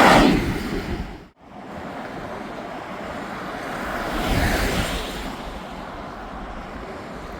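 Road traffic passing on the bridge, each vehicle a rushing swell that rises and fades: one fading out in the first second, another passing about four to five seconds in, over steady wind on the microphone. The sound cuts out briefly about a second and a half in.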